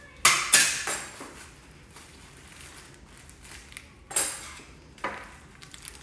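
Cling wrap and baking paper crinkling and rustling in short bursts as a rolled cake is wrapped and rolled by hand on a benchtop, with the loudest bursts just after the start and again about four seconds in.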